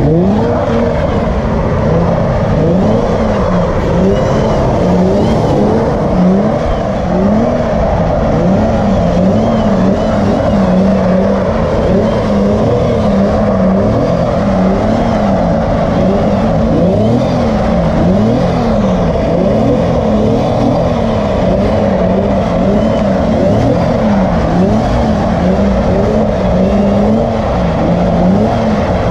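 Car engine revving up and down over and over as the car spins donuts on wet pavement, with the hiss of spinning tyres on the wet surface.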